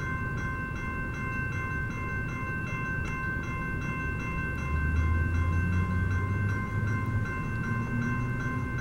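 Railroad grade-crossing bell ringing steadily, about three strikes a second. About halfway through, a low engine drone comes in and rises in pitch.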